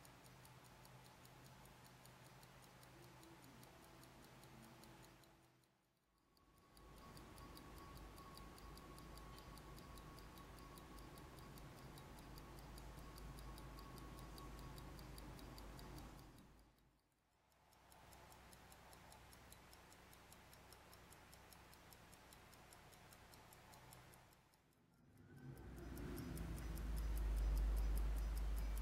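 A Hamilton 992B Railway Special pocket watch ticking faintly and steadily, its lever escapement beating five times a second. The ticking drops out briefly three times, and a low rumble swells in near the end.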